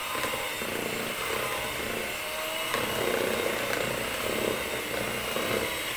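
Electric hand mixer running steadily, its beaters whisking cake batter in a plastic bowl.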